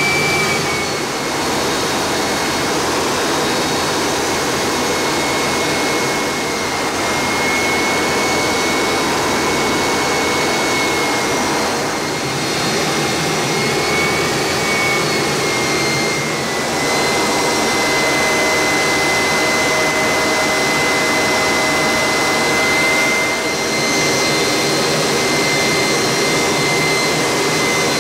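Harrier jump jet's Pegasus engine and airflow heard from inside the cockpit in low-level flight: a loud, steady rush with a high whine that holds its pitch.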